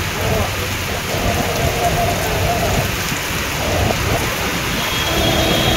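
Heavy rain pouring steadily onto a waterlogged road, with a low rumble underneath.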